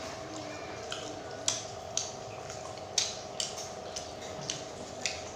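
Close-up eating sounds: a person chewing crispy fried tempeh with sambal, making irregular sharp crunches and mouth clicks, about seven in all, over a steady low hum.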